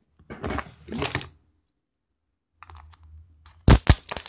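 Scissors snipping through the shell of a cooked king crab leg: a quick run of sharp clicks and cracks near the end, after a softer stretch of handling noise about half a second in.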